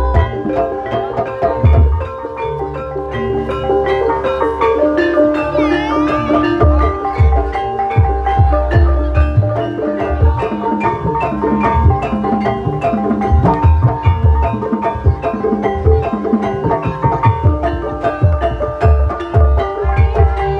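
Javanese gamelan music accompanying an ebeg dance: bronze metallophones struck in a dense, rapid pattern, with drum strokes and deep sustained low tones beneath.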